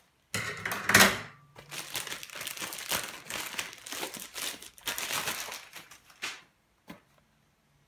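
Plastic courier satchel crinkling and rustling as it is handled and pulled open, loudest about a second in. The rustling stops about six seconds in, followed by one soft click.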